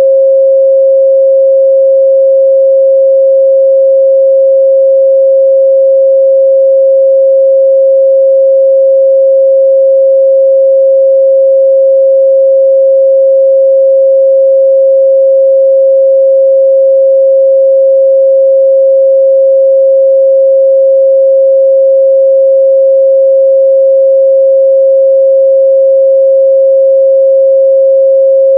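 Steady, unbroken 538 Hz sine-wave test tone, a single pure mid-range pitch held at a constant loud level.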